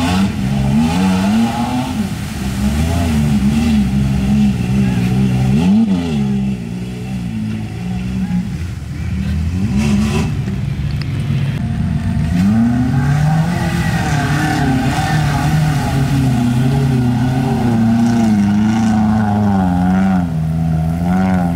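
Off-road 4x4's engine revving up and down again and again, its pitch wavering constantly, with one sharp rev about six seconds in.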